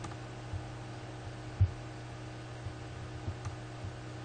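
Steady electrical hum with a faint hiss, broken by a few soft, low thumps; the loudest thump comes about one and a half seconds in.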